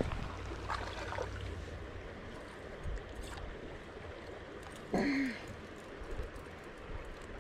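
Shallow creek water running and trickling over rocks, with one brief, louder sound about five seconds in.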